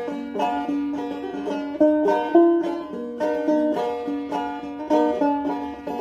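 Banjo being picked: a steady run of plucked notes, each ringing briefly into the next.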